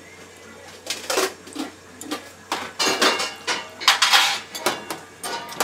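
Clinking and clattering of metal and glass kitchenware being handled and set down: a quick run of sharp clinks and knocks, some ringing briefly, starting about a second in.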